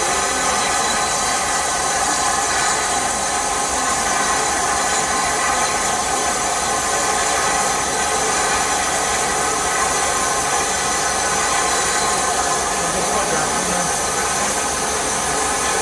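Rebuilt Bulleid West Country class steam locomotive 34028 standing with steam hissing loudly and steadily from beneath it.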